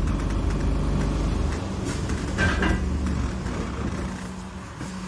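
London bus engine and road rumble heard from inside the bus, dying away as the bus slows and settling to a steady idle hum. A brief high squeak comes about halfway through.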